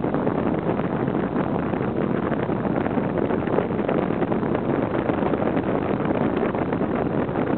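Steady rushing of strong wind on the microphone, mixed with ocean surf.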